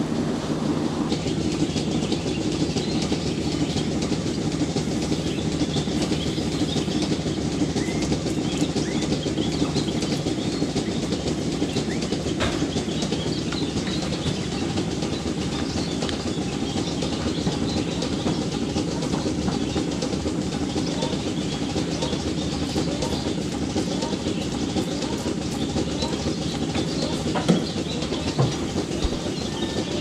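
Steady machinery noise with continuous clatter and rattling.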